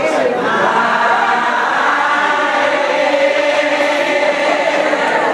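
A group of voices singing together, holding long notes.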